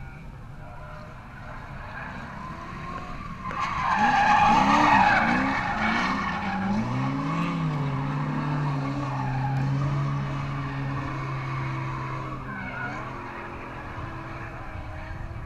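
E36 BMW drift car with a swapped-in Ford Mustang 5.0 HO V8, revving through a drift with its tyres squealing. The squeal is loudest a few seconds in while the revs rise and fall. The engine then holds a steady note for several seconds and eases off near the end.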